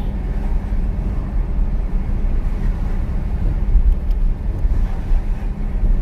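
Car driving along a road, heard from inside: a steady low rumble of engine and tyre noise.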